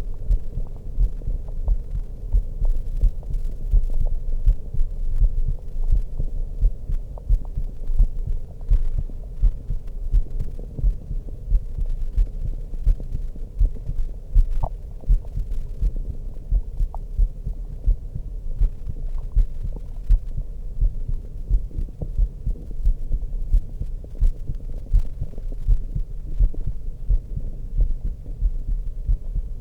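A woman's heartbeat heard through a stethoscope: a steady, regular run of low thumps, with a low ambient hum beneath it.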